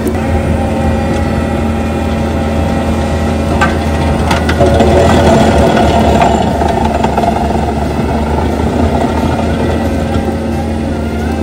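Bobcat skid-steer's diesel engine running under load while its forestry-rotor stump grinder chews into a stump. A few sharp knocks come just before the middle, then the grinding grows louder for about two seconds before settling back.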